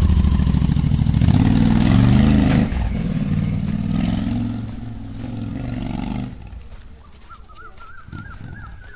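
Royal Enfield Continental GT650's 648 cc parallel-twin running through aftermarket AEW performance silencers with the dB killers fitted, pulling away under throttle. The engine pitch climbs and drops once about two and a half seconds in. The exhaust note then fades as the bike rides off and is nearly gone about six seconds in.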